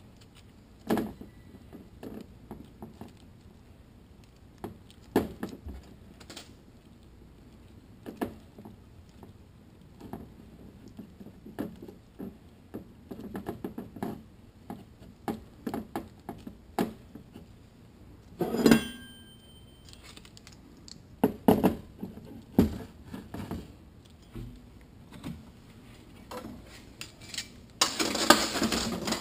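Toyota A340 automatic transmission parts being handled on a steel workbench as sealing rings are fitted on the center support: scattered light metal clicks and clinks, with a sharper ringing clink about two-thirds of the way through and a denser metal clatter near the end as the clutch drum and a clutch plate are handled.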